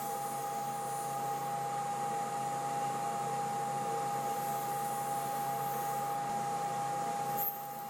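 Powermatic table saw running with a steady whine and hum while a thin board is fed along the rip fence. A short click comes near the end, and the sound is a little quieter after it.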